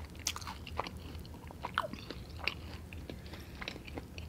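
Chewing and biting into fried chicken wings, with irregular wet mouth clicks and small crunches.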